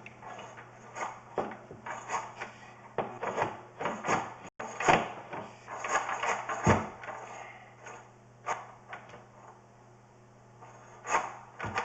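Irregular scraping and knocking of a sewer inspection camera and its push cable being worked along a drain pipe, with a sharper knock every second or two, over a steady low electrical hum.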